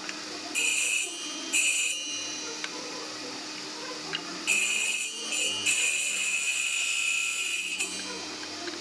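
Table saw's circular blade running with a steady hum and cutting tenon stock, with a high-pitched whine on each cut. There are two short cuts in the first two seconds, then one long cut of about three and a half seconds starting near the middle.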